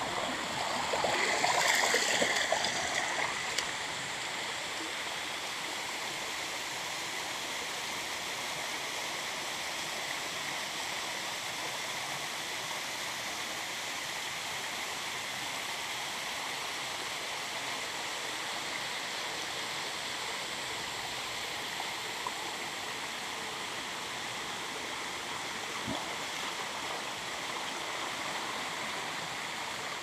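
Water of a small waterfall rushing steadily over rock slabs. In the first few seconds there is louder splashing as water is scooped and slapped by hand.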